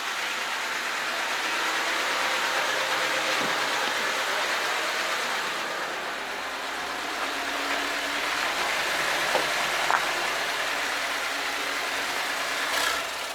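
Car engine running with steady road noise from inside a moving car, with a brief louder rattle near the end.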